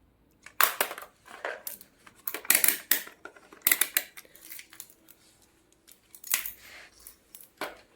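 Irregular clicks, taps and scrapes of small hard tools and parts being handled on a workbench, in clusters with short pauses between them.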